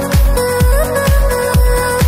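Electronic dance music with a steady kick drum beating about twice a second under held synth tones.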